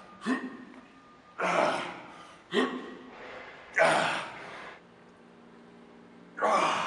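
A man's hard, gasping breaths as he strains through dumbbell hammer curls, one forceful breath per rep. There are five, about a second apart, with a longer pause before the last.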